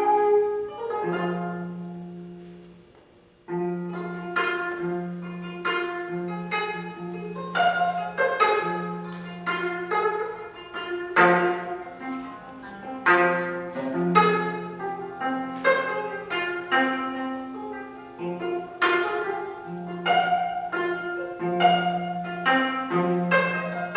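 Contemporary chamber ensemble of 25-string gayageum with Western winds and strings. A held chord fades away, followed by a brief silence about three seconds in. Then come a string of plucked notes over held low notes.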